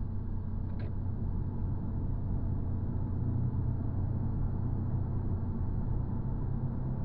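Car engine and tyre noise heard from inside the cabin: a steady low drone that grows slightly louder.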